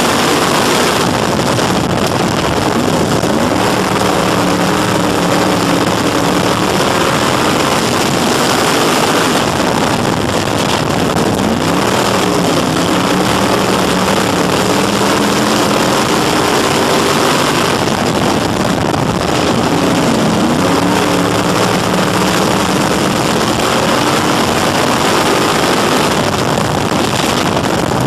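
Crate Sportsman dirt-track race car's V8 engine heard from inside the cockpit at racing speed. It runs loud and steady, its pitch dropping as the throttle is lifted for the corners and climbing again down the straights, about every eight seconds.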